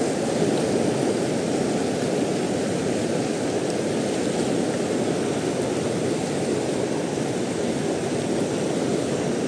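River rapids rushing steadily over boulders, an even wash of water noise with no breaks.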